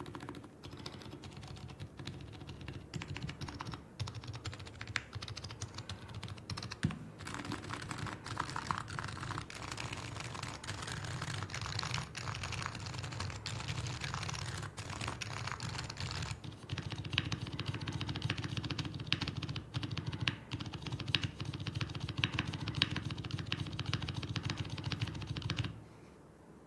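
Fast, continuous typing on a custom Topre electro-capacitive keyboard: an Axiom Typ60 on a carbon-fibre plate with OEM Realforce housings, lubed purple sliders with stock silencing rings, and Keyclack BKE Redux Light rubber domes. The typing stops about a second before the end.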